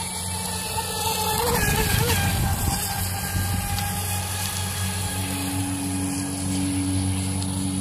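Atomik Barbwire XL RC race boat's brushless electric motor whining as the boat runs across the water, the pitch wavering about two seconds in; a lower steady tone joins about five seconds in.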